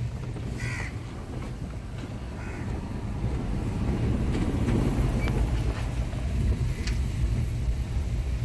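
Low, steady rumble of a car's engine and tyres heard from inside the cabin as the car rolls slowly along.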